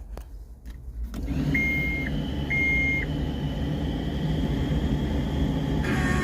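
A few clicks, then a steady low rumble sets in about a second in, and two short electronic beeps sound from the John Deere 324 skid steer's cab controls as the machine is powered up. Music comes in near the end.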